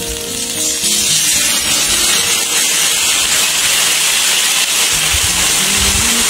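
Starch water sizzling and hissing hard in a hot, oiled pan of pan-fried buns (shuijianbao) as it boils off into steam. The hiss grows louder about a second in and stays strong.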